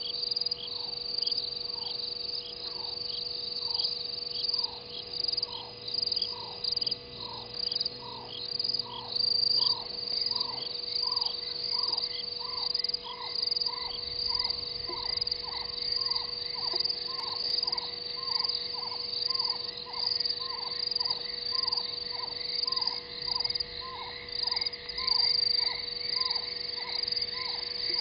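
A night chorus at a waterhole: crickets trill steadily and high, and a frog repeats a short falling call about one and a half times a second. A fainter insect chirping joins in about a third of the way through.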